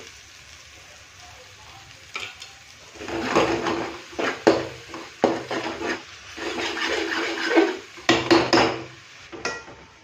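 Steel spoon stirring and scraping thick masala around an aluminium kadai in repeated strokes, with a few sharp clinks of metal on metal near the end.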